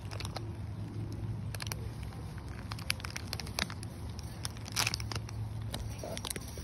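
Fallen maple leaves rustling and crackling, with many scattered sharp crackles over a steady low hum.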